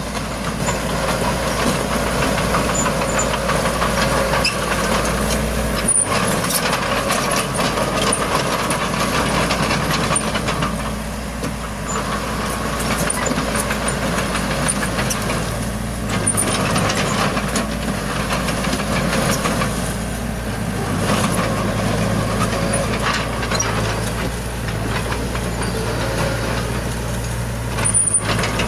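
Heavy diesel earthmoving machinery running and working, the engine note rising and falling every few seconds under changing load, with occasional sharp metallic clanks.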